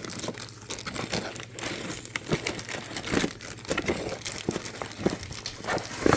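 Packaging crinkling and rustling as it is handled, with irregular small clicks and crackles.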